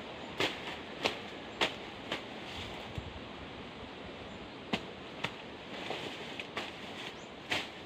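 Weeds and undergrowth being cleared by hand: sharp snaps of stems breaking, four about half a second apart in the first two seconds and a few more later, over rustling leaves.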